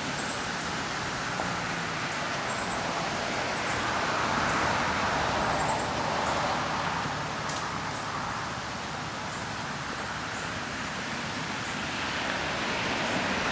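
Steady outdoor background noise: an even hiss that swells about four to six seconds in and eases off, with faint high ticks scattered through it and a single click near the middle.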